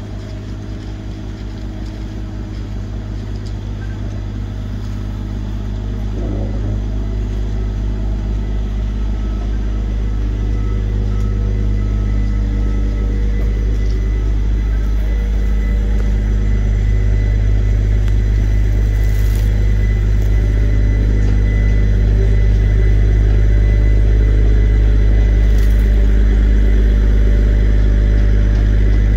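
Steady low engine drone from a cog railway locomotive and rotary snowplow moving slowly along the rack track, growing louder as they come closer, with a couple of faint clicks later on.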